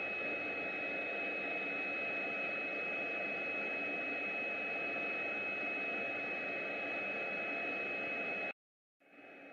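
Steady hiss with a high-pitched whine from an automatic book box assembly machine running as its glue-spraying head travels over the board. It cuts out abruptly about a second before the end and comes back quieter.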